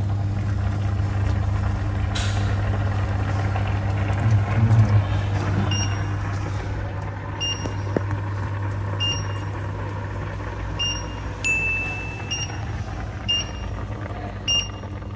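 Induction cooktop beeping: short, high electronic beeps about every second and a half from about six seconds in, with one longer beep midway, over a steady low hum and hiss.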